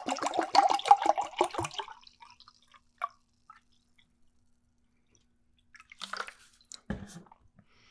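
Milk drink glugging out of a plastic bottle into a drinking glass in quick pulses, the pitch rising slightly as the glass fills, stopping about two seconds in. A small tick follows about three seconds in, and near the end there is some handling noise and a soft thump.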